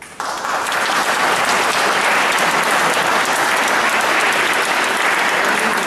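Audience applauding: clapping that starts suddenly and holds steady.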